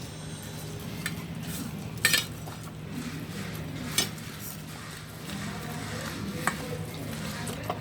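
Utensil clinking and scraping against metal cooking vessels, with about five sharp clinks, the loudest about two seconds in, over a steady low hum.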